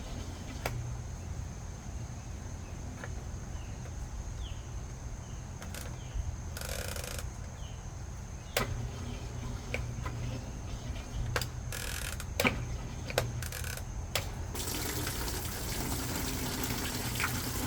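GE top-load washing machine running with a steady low hum, scattered clicks and knocks, and water running into the tub; the water rush grows louder about 15 seconds in.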